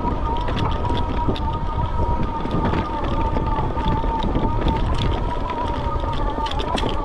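An Aniioki A8 Pro Max e-bike's electric motor whining at a steady pitch while riding, over a low rumble of wind noise on the microphone, with scattered light clicks.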